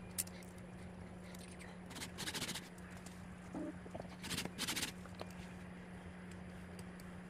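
A sharp click, then two short scraping bursts about two seconds apart, over a steady low hum.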